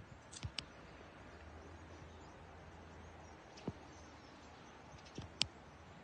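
A few short, sharp clicks and taps over a quiet background: two just after the start, one about halfway, and a close pair near the end, the last being the loudest.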